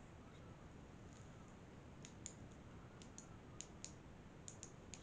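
Near silence with faint hiss. From about two seconds in, a run of faint, sharp clicks, mostly in quick pairs.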